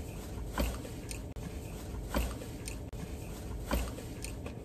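A person chewing food, with small wet mouth clicks and smacks every half second to a second over a low rumble.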